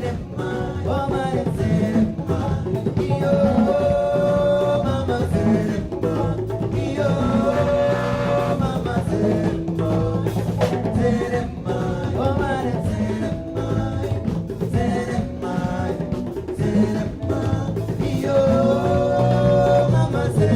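A live band playing a song, with a drum kit keeping the beat under a singing voice.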